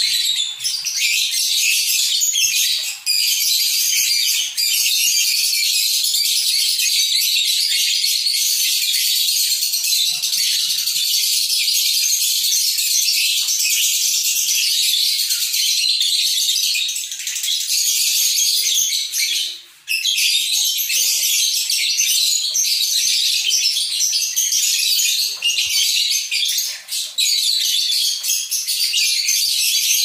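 Lovebird singing its ngekek song: one long, high-pitched chattering trill broken only by a few short pauses, the longest about twenty seconds in. The pauses are short and close together, the 'jeda rapat' style that bird keepers prize.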